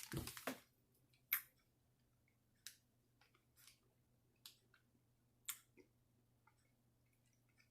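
A candy bag crinkles briefly at the start. Then come a few faint, scattered crisp clicks and crunches as hard-shelled M&M's candies are chewed.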